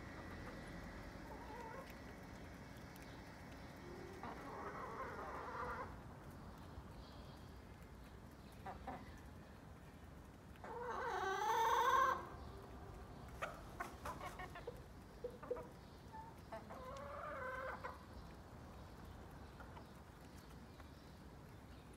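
Backyard chickens calling now and then, with a rooster crowing once about halfway through, which is the loudest sound.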